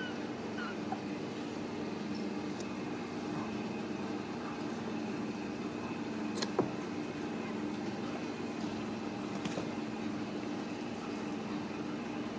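A steady low mechanical hum, with a few faint taps and one sharper click about halfway through.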